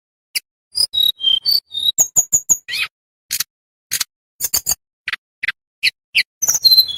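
Tledekan bambu songbird singing: a broken string of sharp, high clicking chips mixed with short clear whistled notes, some falling in pitch, with a quicker run of notes near the end.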